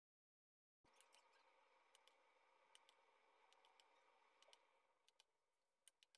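Near silence: dead quiet at first, then faint room tone with a scatter of small, faint clicks.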